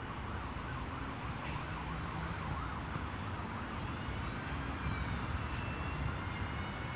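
Distant emergency-vehicle siren going up and down in quick cycles over a steady low rumble of city traffic. A thin, high squeal of several tones comes in about halfway through.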